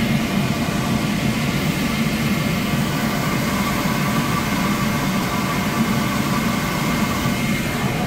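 Beckett commercial gas power burner firing a Weil-McLain steam boiler on main flame: a steady roar of the flame and combustion-air blower, with a thin steady high whine over it. The burner is running normally with good flame.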